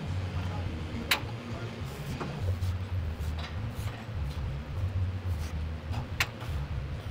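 Seated leg curl machine in use during a set: a few sharp metallic clicks from the machine, two louder ones about five seconds apart, over a steady low hum.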